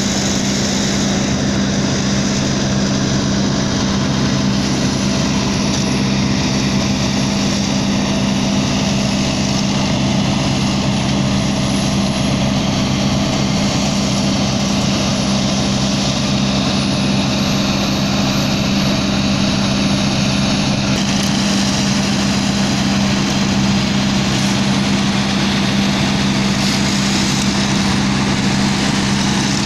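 Sumitomo HA90C asphalt paver's diesel engine running at a steady speed: a loud, even hum that does not change.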